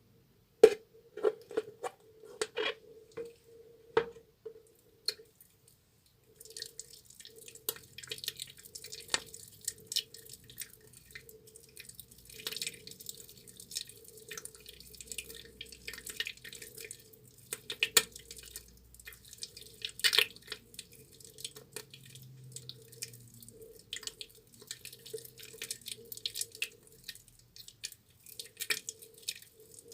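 A soaked, softened bar of tar soap being lathered wet. For the first several seconds there are a few separate wet clicks and smacks. From about six seconds in comes a continuous wet squishing and crackling of lather.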